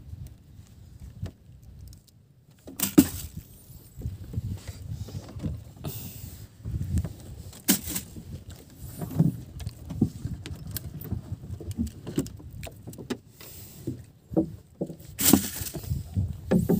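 Irregular knocks, bumps and clicks of fish and gear being handled on a wooden boat deck and in a cooler box. A few sharp knocks stand out, the loudest about three seconds in and near the end.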